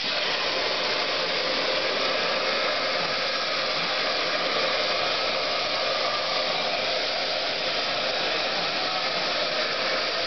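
CNC plasma torch cutting steel plate: a steady, loud hiss.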